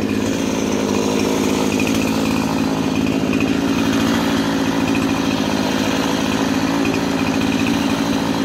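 Two-stroke chainsaw running steadily at a fairly constant engine speed.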